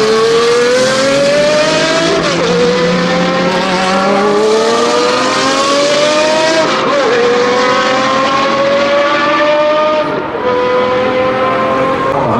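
Jaguar XJR-9 Group C race car's naturally aspirated 7.0-litre V12 accelerating hard under full throttle. Its pitch climbs steadily in each gear and drops sharply at three upshifts, about two, six and a half, and ten seconds in.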